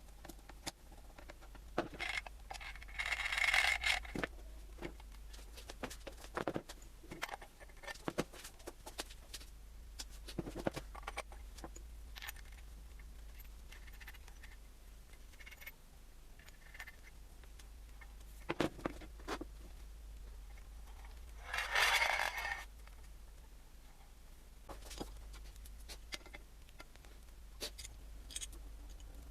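Small metal parts and tools being handled on a workbench: scattered clinks, clicks and knocks, with two louder scraping noises about a second long, one a few seconds in and one past the middle.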